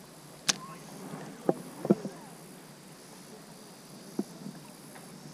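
A few sharp clicks and knocks, four or five in all, over a faint steady hiss of flowing river water.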